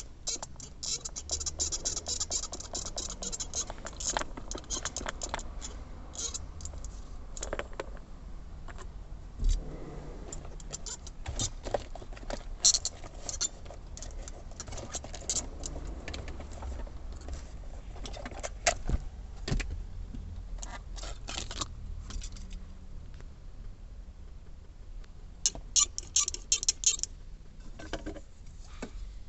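Irregular clicking and rattling from a Suzuki Jimny's gear shift lever, the noise the lever is faulty for, over a steady low engine hum.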